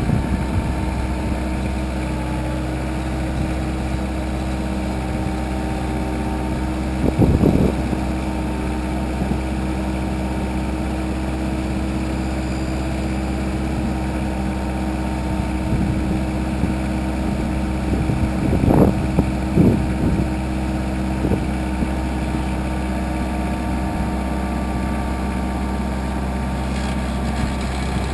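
Compact tractor engine running steadily while the front loader bucket works the dirt. A few short louder bursts break in, about seven seconds in and again around nineteen to twenty seconds.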